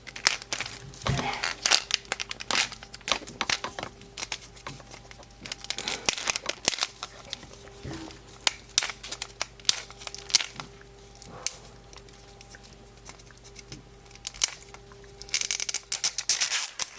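Plastic wrap on a Mini Brands capsule crinkling and tearing in irregular bursts as it is pulled open by hand, with a louder flurry of crinkling near the end. A faint steady hum runs underneath.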